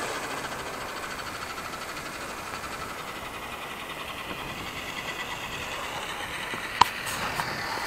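Align T-Rex 700X electric helicopter's brushless motor and rotor head spooling down after landing, a whine that slowly drops in pitch and fades. A single sharp click comes near the end.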